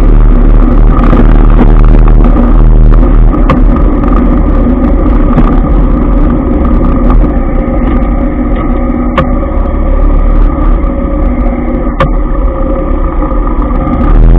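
Motorcycle ride through dense motorbike traffic: the bike's engine and the engines of the scooters and motorcycles around it make a loud, steady rumble, with a few short sharp ticks.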